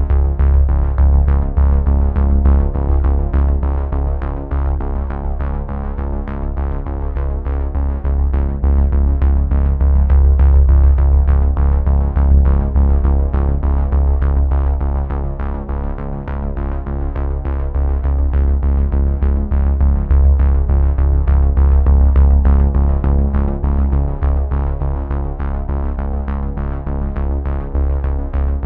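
Background music: a synthesizer track with a deep bass and a steady beat.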